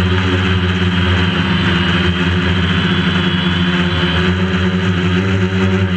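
DJI Phantom quadcopter's motors and propellers running steadily, picked up by the GoPro camera mounted on the drone itself: an even, unchanging hum and buzz.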